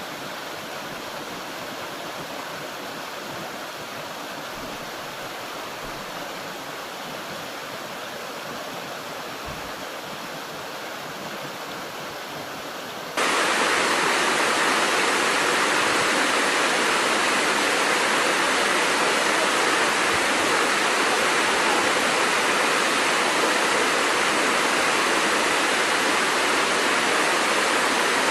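Steady rushing of flowing stream water. About halfway through it cuts abruptly to a louder, brighter stretch of rushing water.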